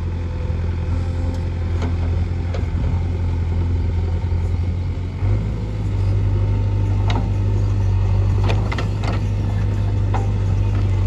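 Heavy diesel engine of a backhoe loader running steadily, its note stepping up slightly about five seconds in, with several short sharp knocks over the engine.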